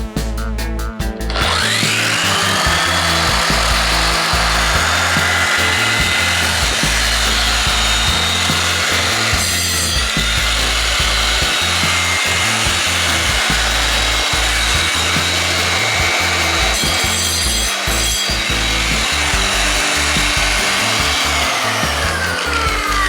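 Parkside PWBS 180 B2 wall and floor sander switched on: its motor whines up to speed about a second in and runs steadily. It begins to wind down near the end.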